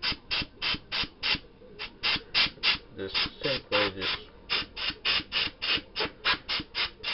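Compressed-air blow gun hissing in quick short blasts, about three or four a second, blowing muck out of small carburettor parts.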